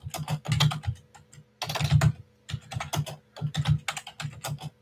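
Typing on a computer keyboard: quick runs of keystrokes broken by short pauses, the busiest run about two seconds in.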